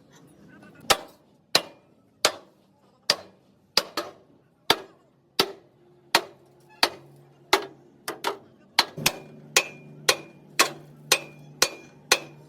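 Hammer striking steel in a steady rhythm, each blow ringing. It runs at about one and a half blows a second, quickening to about two a second in the second half.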